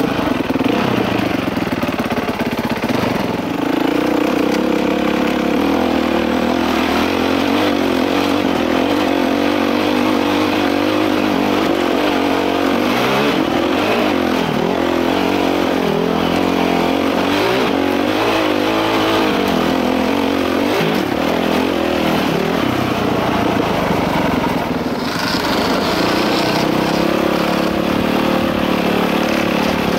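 Dirt bike engine running under load on a trail, heard up close from the bike itself. It holds a steady pitch at first, rises and falls over and over as the throttle is worked through the middle, and settles to a steady pitch again near the end.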